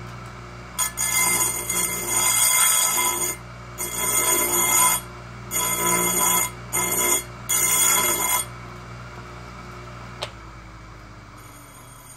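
Oregon 410-120 chain grinder's motor humming steadily while a dressing stone is pressed against its spinning grinding wheel in five bursts of loud, high, ringing grinding. The wheel is being dressed to restore its worn profile.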